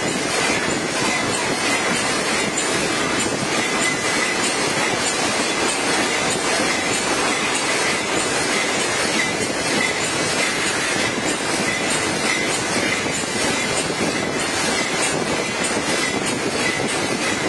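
Aerosol tin can vacuum leak testing machine running on the production line: a steady, dense mechanical clatter with a faint high whine over it.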